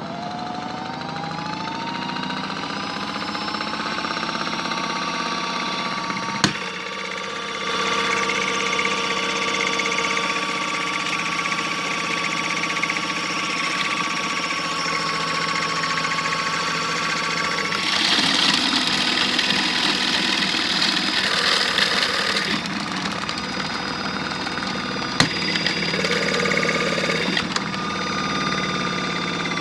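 Small electric motor of a modified Miele W1 toy washing machine running with snow in the drum, its whine rising in pitch over the first few seconds and then holding steady. Two sharp clicks, one early and one near the end, and a harsher, noisier stretch about two-thirds of the way through.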